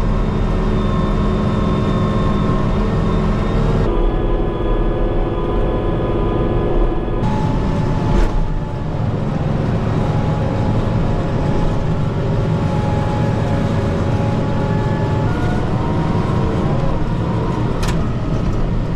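Kubota M5-091 tractor's four-cylinder turbo diesel engine running steadily, heard from inside the cab as the tractor drives. Its tone changes abruptly about 4 and 7 seconds in, and two sharp clicks come about 8 and 18 seconds in.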